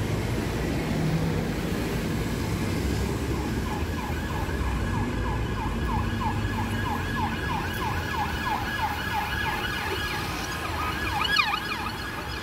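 Emergency vehicle siren in fast yelp, quick rising sweeps a few times a second, starting about four seconds in, with a louder burst near the end, over a steady rumble of city traffic.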